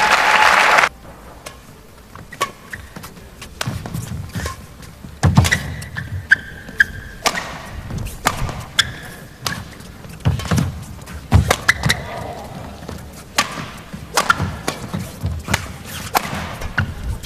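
Badminton rally: sharp racket strikes on the shuttlecock at irregular intervals, mixed with players' footfalls thudding on the court. Crowd applause fills about the first second and cuts off abruptly.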